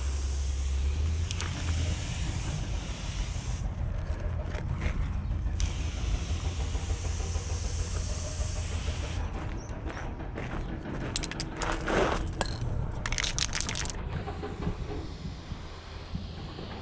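Spray paint hissing out of an aerosol can through a four-needle skinny cap adapter in long bursts, over a steady low rumble of wind on the microphone. About ten seconds in, the hiss gives way to a run of sharp clicks and rattles.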